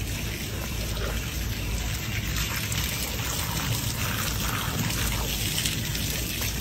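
Water from a garden hose running steadily into a hippo's open mouth and trickling out over its lower jaw.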